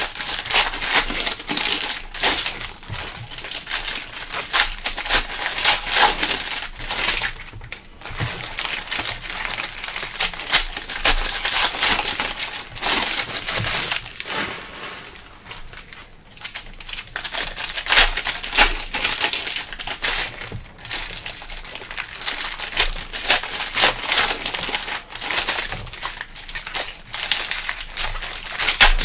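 Plastic wrappers from Prizm baseball card packs being crinkled and crumpled by hand in dense, irregular crackling, with brief lulls about eight and fifteen seconds in.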